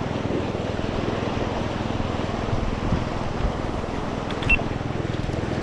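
Steady wind rumbling on the microphone over surf on a rocky shore, with one short click about four and a half seconds in.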